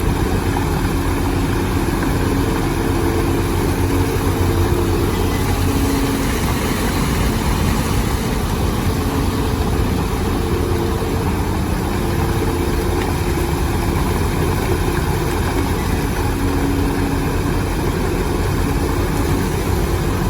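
Heavy construction machine's engine running steadily for the whole stretch, its pitch shifting a little now and then.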